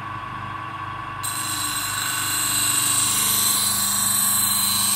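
An electric grinder's motor hums steadily; about a second in, a steel knife blade is pressed to the spinning wheel and a steady high grinding hiss sets in as the edge is reground.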